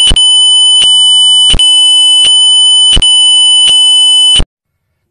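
Very loud, shrill, steady electronic alarm-like tone, broken by a sharp click about every three-quarters of a second, cutting off abruptly near the end: a jump-scare sound effect.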